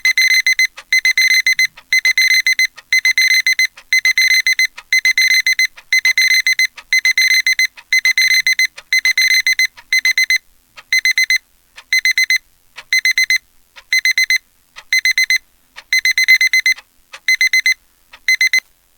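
Electronic alarm-clock beeping from a web alarm clock app: a high-pitched tone in groups of rapid beeps about once a second, stopping suddenly near the end.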